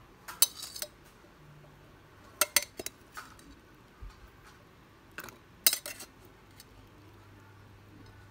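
A metal spoon clinking against bowls while scooping boiled sweet corn kernels from a stainless steel bowl into a serving bowl, in three short bursts of clinks.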